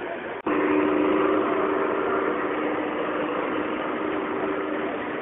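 Model railway locomotive running on the layout: a steady engine-like hum with two held tones over the noise of a busy hall. The sound cuts in abruptly about half a second in.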